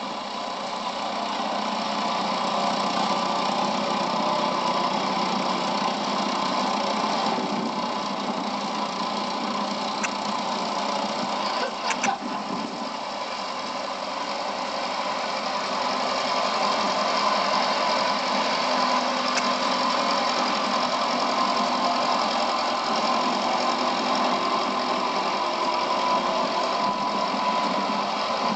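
Diesel engines of a twin-engined Doe tandem tractor running steadily under load while ploughing. There is a brief sharp clack about twelve seconds in.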